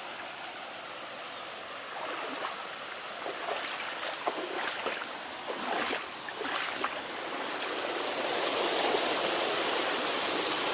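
Spring water running over the rocks of a small waterfall, a steady rushing with a few short splashes in the middle, growing louder near the end.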